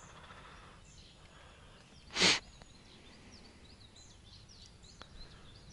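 Faint outdoor ambience with small birds chirping high and quiet in the later part, and one short breathy hiss about two seconds in.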